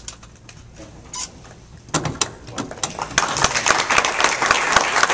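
Audience applauding: a few scattered claps about two seconds in, swelling a second later into steady applause from many hands.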